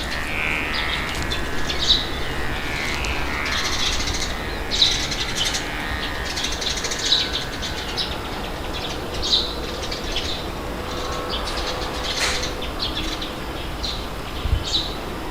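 Small birds chirping in short, repeated calls over a steady rumble of wind.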